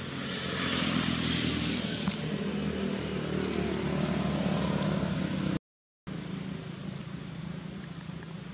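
A motor vehicle's engine running, swelling in the first second and then holding, with a sharp click about two seconds in. The sound cuts out for about half a second, then a quieter steady engine hum carries on.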